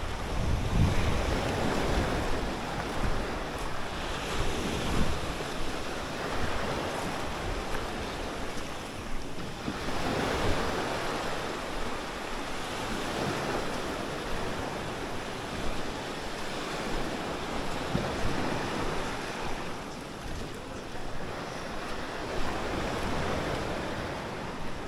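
Small waves washing onto a sandy, pebbly shore, the surf swelling and fading every several seconds. Wind buffets the microphone with a low rumble, strongest near the start.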